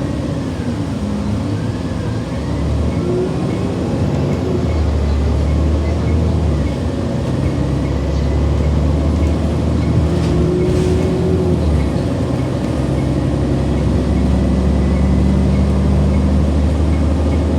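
Transit bus engine and drivetrain running under way, heard from inside the cabin: a steady low rumble whose pitch shifts several times as the bus changes speed.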